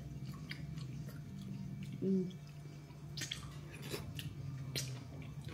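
Eating sounds: mouth chewing with small clicks and scrapes of a knife and fork on a plate, and a short 'mm' about two seconds in, over a steady low hum.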